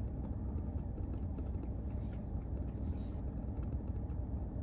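Steady low rumble of a car idling, heard from inside its closed cabin.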